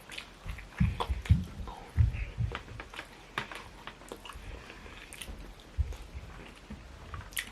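Close-up chewing of a mouthful of food, with soft irregular mouth clicks and wet smacks.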